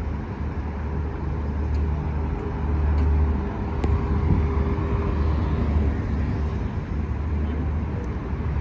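Road traffic noise: vehicles running with a steady low rumble.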